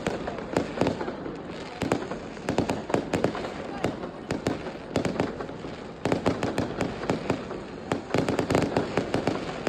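New Year's fireworks going off in rapid strings of sharp cracks and bangs, densest about two seconds in and again in the second half.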